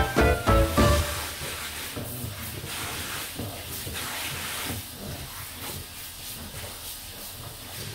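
Handheld shower head spraying water onto a dog's wet coat in a plastic tub: a steady hiss of running spray. Background music ends about a second in.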